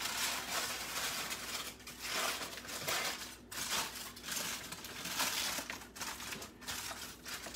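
Aluminium foil being torn open and crinkled by hand, a sealed foil pouch pulled apart in a series of rustling, crackling bursts.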